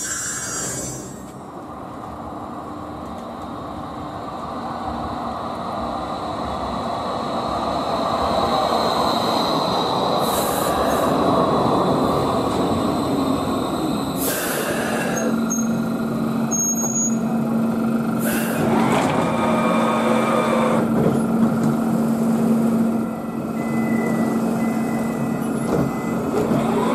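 A Bombardier ET2010 (Flexity Swift) light-rail car runs in alongside, its rumble growing louder over several seconds. It then stands with a steady low hum, while short hissing bursts sound a few times. It follows the tail end of another tram passing in the first second.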